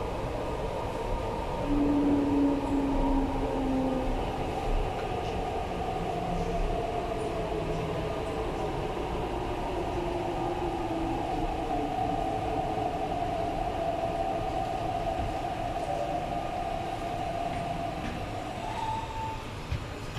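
MTR East Rail Line R-Train electric multiple unit heard from inside the car as it slows into a station: a steady running rumble with a motor whine that slowly falls in pitch. The whine ends with a brief higher tone about a second before the end.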